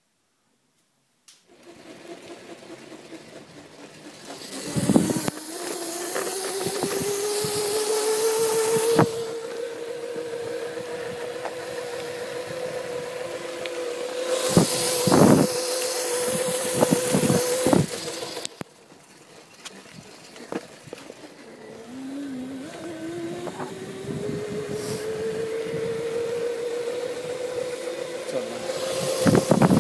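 Whine of a 250 W electric scooter motor driving an MBS mountainboard, rising in pitch as the board picks up speed and then holding steady. It drops away about two-thirds through and climbs again near the end. Two spells of wind noise on the microphone and a few sharp knocks from the board over bumps.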